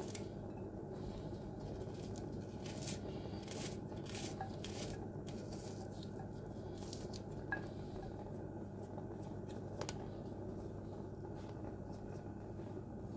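Fingers snapping and peeling apart raw chopped onion layers, with soft crisp cracks and light squishes as pieces break off and drop into a frying pan, most often in the first few seconds, over a steady low hum.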